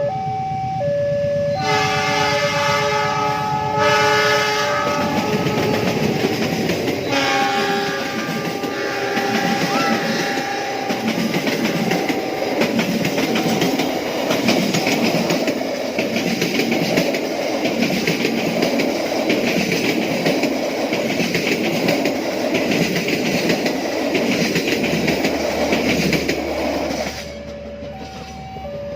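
A level-crossing warning alternates between two tones. A diesel train's horn sounds for about three seconds near the start, then the passing train's wheels clatter over the rail joints in a steady, even rhythm for about twenty seconds before the train is gone.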